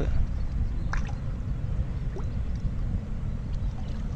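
A hooked tilapia thrashing at the water surface, giving a few brief, faint splashes and gurgles over a steady low rumble.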